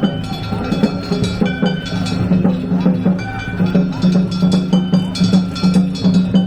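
Danjiri-bayashi festival music played on a gion float: drums and gong strokes beating a steady, quick rhythm over sustained tones.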